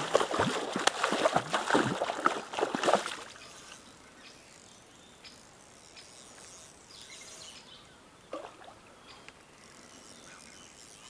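A freshly hooked trout thrashing and splashing at the water surface for about the first three seconds, then quieter steady stream noise with a few faint bird chirps.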